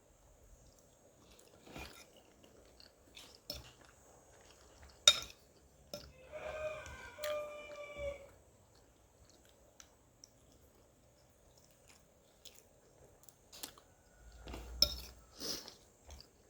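Close-up eating sounds: chewing with scattered sharp clicks of cutlery against a plate, and a louder cluster of eating noise near the end. About six seconds in, a pitched call with a few held tones sounds in the background for about two seconds.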